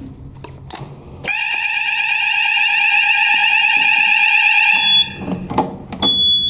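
Fire alarm sounder sounding a steady high tone during a weekly fire alarm test. It starts about a second in after a few clicks, lasts about three and a half seconds and cuts off abruptly. Two short high beeps follow near the end.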